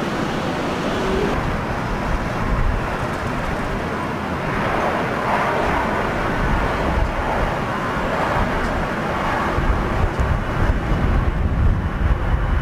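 Airbus A320 jet engines running at taxi power as the airliner turns onto the runway and lines up, a steady rush of engine noise over a low rumble that strengthens in the last few seconds.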